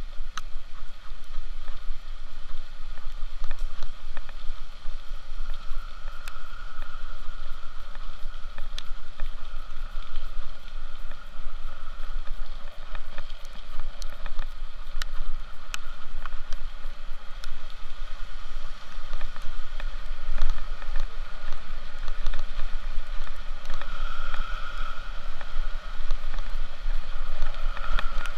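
Steady road and engine rumble inside a moving vehicle's cabin, with a few faint clicks and rattles.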